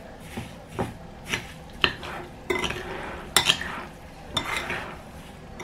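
Metal spoon stirring soaked sago pearls and sugar in a ceramic bowl, scraping and clinking against the bowl in irregular strokes.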